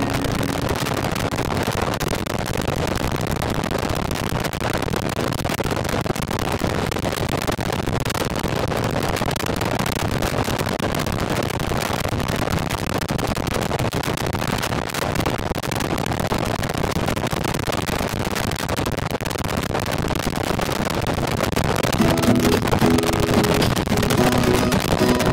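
Motorcycle cruising at a steady highway speed, around 65 mph: a constant rush of wind and road noise over the engine. Music comes in near the end.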